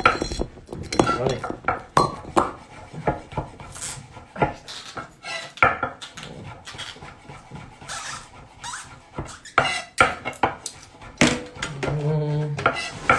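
Kitchen knife slicing mushrooms on a wooden cutting board: irregular sharp knocks of the blade striking the board.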